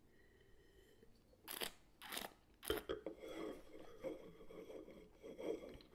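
Wine being tasted: three short slurps about half a second apart as air is drawn through a mouthful of wine, then the wine swished and worked around the mouth.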